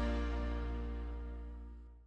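Background music ending: a final held chord rings on and fades out.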